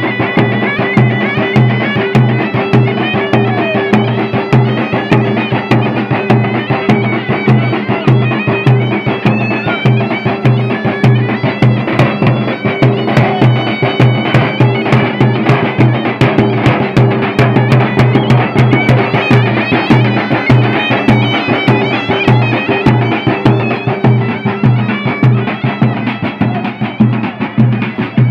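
Southern Tunisian folk music: a loud reed pipe (zokra) plays a wavering melody over a low, steady tone, while several double-headed tabl drums beat a fast, even rhythm throughout.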